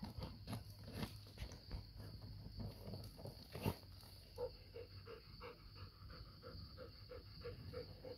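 Labrador retriever digging in dry, stony dirt, its paws scratching and scattering earth. About halfway through it pants rapidly, about four breaths a second.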